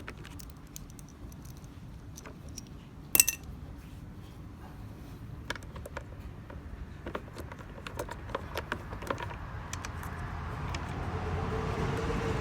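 Small irregular metal clicks and clinks of hand tools and bolts as the quarter-inch bolts under a refrigerator ice maker are taken out, with one sharp ringing metallic clink about three seconds in. A low steady rumble builds near the end.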